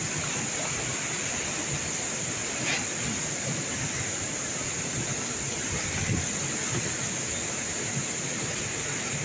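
A waterfall in monsoon flash flood, muddy water crashing down into a churning pool: a steady, unbroken rush of water.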